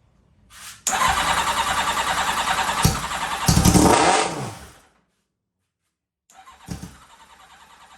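Kawasaki ZX-7R's inline-four engine cranking over on its electric starter for about four seconds without settling into running, which the owner puts down to no fuel reaching it. After a break, a much quieter steady mechanical sound follows near the end.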